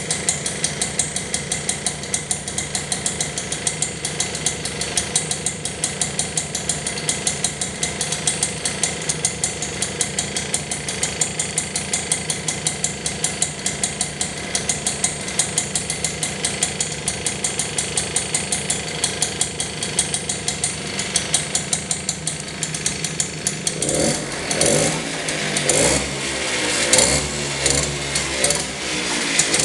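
Fantic Issimo 50 moped's small two-stroke engine idling with a steady, even beat. Near the end it is revved up in a few short blips.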